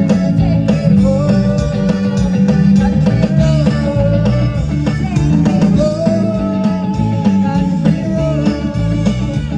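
A live band playing through a PA during a sound check: electric bass and drums under a sung melody, loud and with a steady beat.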